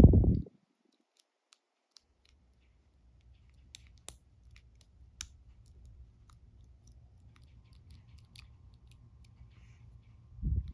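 Faint, scattered clicks and light scrapes of a hook pick probing the pins inside an Ultion dimple lock cylinder, over a low handling rumble.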